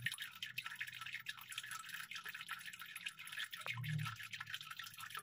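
Faint, dense, irregular crackling and clicking, an old-record surface-noise effect, over a low hum that swells briefly about four seconds in.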